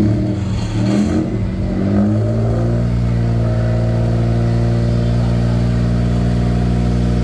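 Ayla 1.0's three-cylinder engine revving through a full-system aftermarket racing exhaust (racing downpipe, resonator and muffler) with a sharp exhaust note. The revs climb unevenly over the first two seconds, then are held steady at raised rpm.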